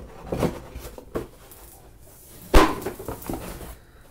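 Cardboard and moulded pulp packaging being lifted out of a box, with scraping and rubbing and a few light knocks. One loud thump comes about two and a half seconds in.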